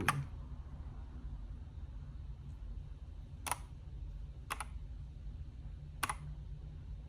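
Three single key presses on a Redragon K668 mechanical keyboard, each a sharp click, spaced about one to one and a half seconds apart, over a faint low hum.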